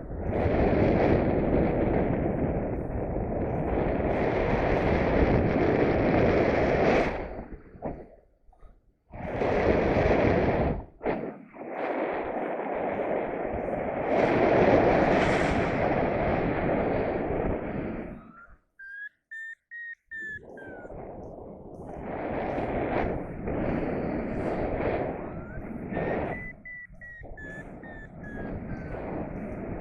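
Strong wind buffeting the microphone in gusts, cutting out abruptly a few times. A thin whistle-like tone rises and falls twice, each lasting about a second and a half.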